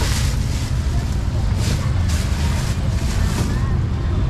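Street ambience: a steady low rumble of traffic with people talking.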